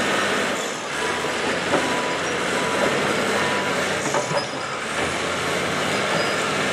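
Caterpillar crawler bulldozer working, its diesel engine running steadily as it pushes dirt and stumps.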